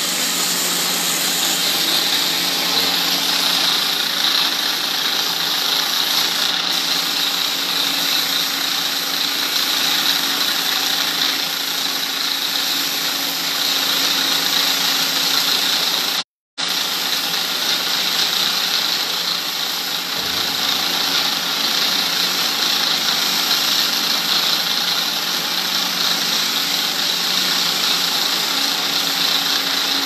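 Motor-driven water pump running steadily, with its hose jet hissing as it sprays hard across a concrete pen floor; the sound breaks off for a moment about halfway.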